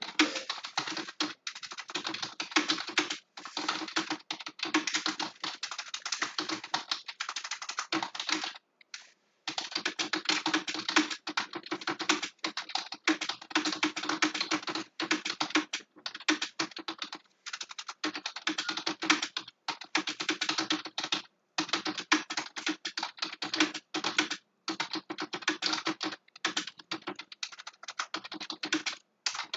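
Fast, continuous typing on a computer keyboard: rapid key clicks with only brief breaks, the longest a pause of under a second about nine seconds in.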